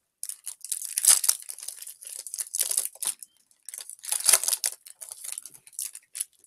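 Pokémon card booster pack's foil wrapper being torn open and crinkled by hand, with two louder rips, one about a second in and one about four seconds in.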